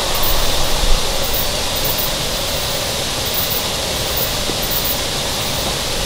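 Steady rushing of running water from a stream or small waterfall, with a few low handling bumps in the first second.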